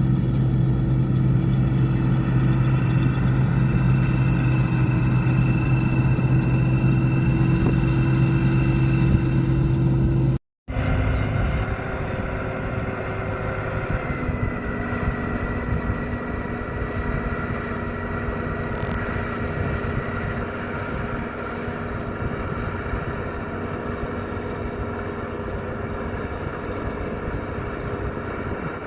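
Combine harvester engine and machinery running steadily with a constant hum. About ten seconds in, the sound cuts out for a moment and resumes quieter, with a different steady note.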